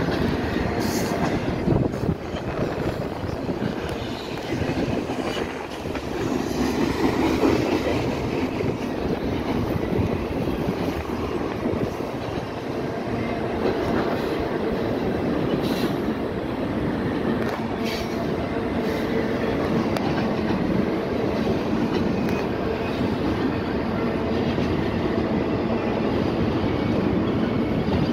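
Double-stack intermodal freight cars rolling steadily past, with a continuous rumble of steel wheels on rail and a few sharp clicks.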